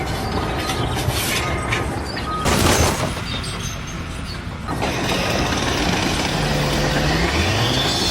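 Machinery noise with a loud crash about two and a half seconds in; after an abrupt change, an engine revs up near the end.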